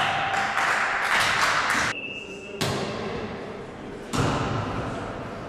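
Volleyball game in a gym: players' voices and noise from the court, a short steady whistle blast about two seconds in, then two sharp thuds of the ball about a second and a half apart.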